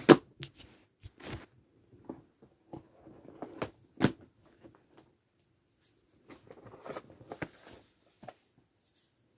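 Plastic movie cases being handled and shuffled: irregular clicks and knocks with soft rustling between them, loudest right at the start and again about four seconds in.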